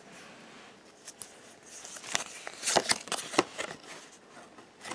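Handling a freshly opened Pokémon TCG booster pack and its cards: a few light rustles and sharp clicks of card and wrapper, the strongest between two and three and a half seconds in.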